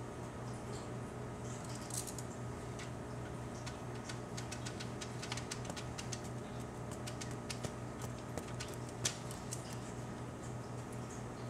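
Scattered light clicks and ticks as a Maine Coon kitten bats at a feather teaser toy on carpet, thickest in the middle and sharpest about nine seconds in, over a steady low hum.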